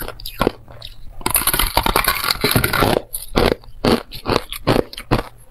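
Thin, brittle ice crunched between the teeth. A few sharp bites are followed about a second in by two seconds of dense crackling as the thin ice breaks up, then rhythmic chewing crunches, two to three a second.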